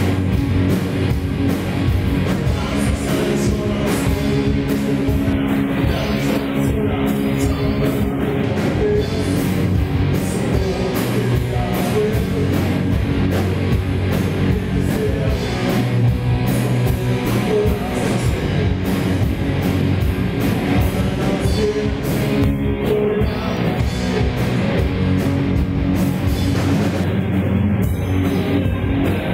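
Live rock band playing loud: electric guitar, electric bass and drum kit.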